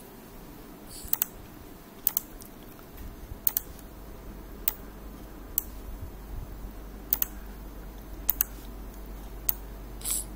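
Sharp, sparse clicks of a computer mouse, roughly one a second and some in quick pairs, over a faint low hum that comes in about three seconds in.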